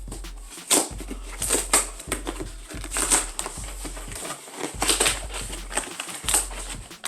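Cardboard shipping box being pulled open, with irregular ripping, crackling and crinkling of the cardboard and packaging.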